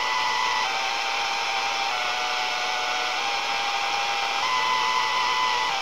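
Radio receiver putting out a steady hiss of static with high, steady whistling tones that step to a new pitch a few times, which the owner takes for sounds picked up from the galaxy.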